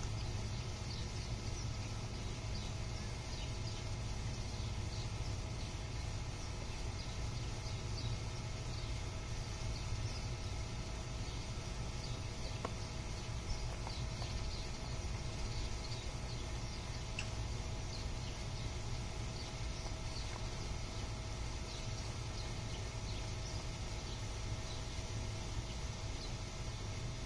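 A Presa Canario dog chewing raw chicken, with small irregular crunches and clicks of bone and teeth scattered throughout, over a steady low hum.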